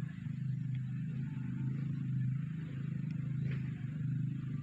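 Steady, low engine hum of a small motor running without change.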